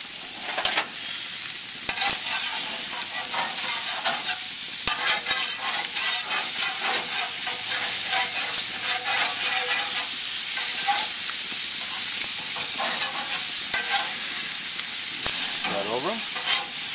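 Marinated chicken thighs sizzling and crackling on a hot grill, a steady hiss with scattered pops as fat and marinade drip onto the flames. Near the end a spatula scrapes briefly across the grates.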